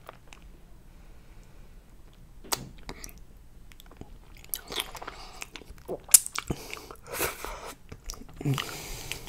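Close-miked eating sounds of a person with a mouthful of fettuccine in creamy chicken chili sauce: noodles drawn into the mouth and wet, open-mouthed chewing with sharp mouth smacks. Quieter for the first couple of seconds, then busier and louder from about halfway.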